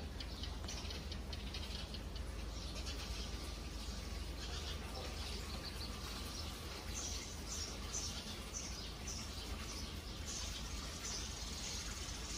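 Small birds chirping in street trees, with a quick run of short high chirps in the second half, over a steady low background rumble.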